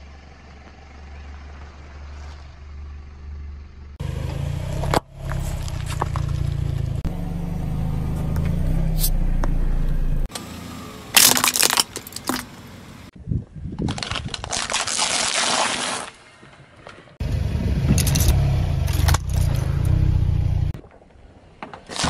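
Car tyre rolling slowly over objects on asphalt and crushing them. Sharp cracks, crunches and scraping come over a low engine rumble, in several short clips that cut abruptly from one to the next.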